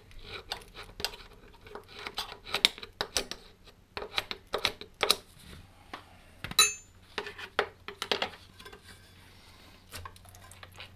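Flat pry bar and other metal tools clinking and knocking against the TD5 engine's water pump casting as the stuck pump is prised loose: an irregular run of sharp clicks and taps, with one ringing metal clang about six and a half seconds in.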